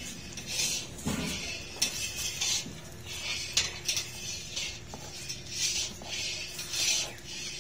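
A plate scraping and patting crumbly sohan halwa in a plastic-lined metal tray: a quick run of short scraping, rustling strokes with a few sharp knocks.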